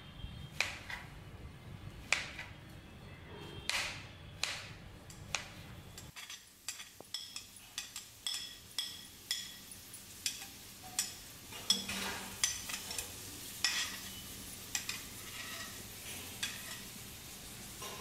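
Hand food preparation in a kitchen: irregular sharp knocks and clinks of a knife and utensils against a cutting board and metal pans and plates, coming more often in the second half, over a low steady hum.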